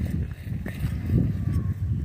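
Footsteps walking on loose sand, a soft low thud about every half second, over a low rumble.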